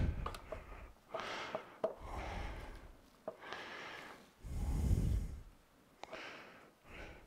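Quiet handling of plastic shop vac parts inside the drum: a few light clicks and knocks, with several soft breaths close to the microphone.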